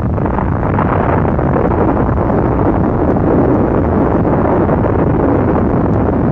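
Deep, steady rumbling roar of a huge explosion, the sound given to an underwater nuclear blast as its water column and cloud rise, holding on without a break.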